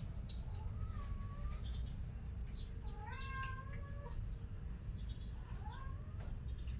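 A kitten meowing three times, short rising mews with the middle one the longest, over a steady low background rumble.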